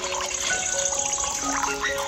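Water trickling from a miniature hand pump's spout down a small metal channel, under background music with held notes.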